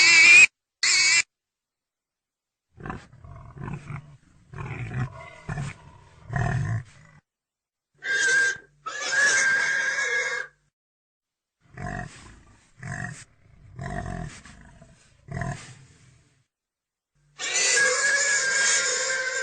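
Pig sounds in separate clips with silence between them: a loud squeal right at the start, short low grunts, and long high-pitched squeals about eight seconds in and again near the end.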